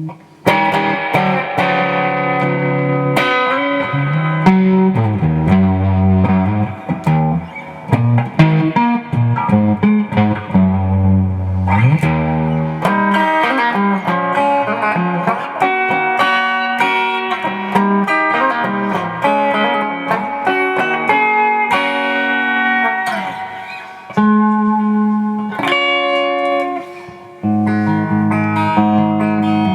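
1986 Fender Contemporary Telecaster electric guitar played as a test after repairing the earth connections on its pickup selector switch, picking single notes and chords continuously.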